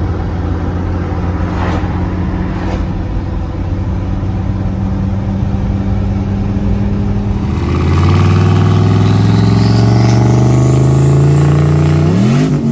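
A vehicle engine cruising at a steady pitch for about seven seconds. Then the turbocharged LS V8 accelerates hard, its pitch climbing steadily under a high whistle that rises with it, the turbo spooling. Near the end the revs swing up and down quickly.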